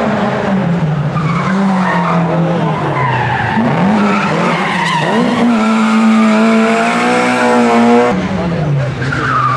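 Rally car engine revving hard, rising and falling, then held high and steady for about three seconds before dropping near the end. Tyres squeal as the car slides through a turn.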